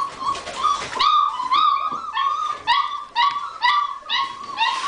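Five-week-old Weimaraner puppies whimpering and yipping: a steady run of short, high cries, about two a second.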